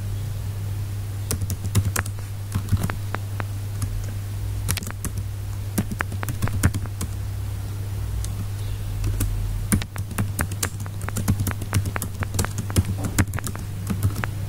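Typing on a computer keyboard: irregular keystroke clicks, in quick runs with short pauses, over a steady low hum.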